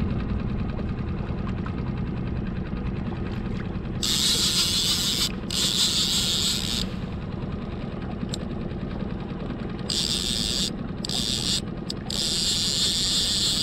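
Skiff's outboard motor running steadily at trolling speed, with hissing bursts of a fishing reel's drag paying out line as a fish takes the bait: a long run about four seconds in and several more in the second half.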